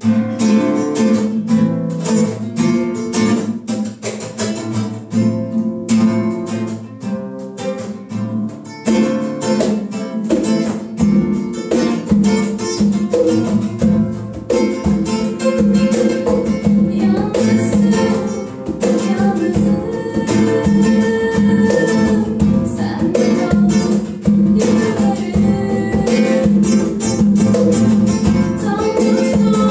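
Acoustic guitar playing a picked, rhythmic song intro, joined by a hand drum about nine seconds in.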